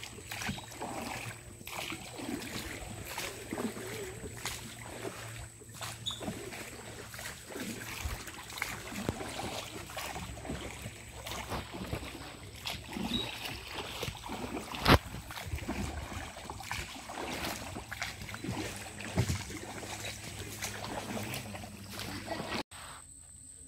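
Wooden rowboat being rowed: oars knocking irregularly in their oarlocks and dipping in the water, with one sharp, louder knock about fifteen seconds in.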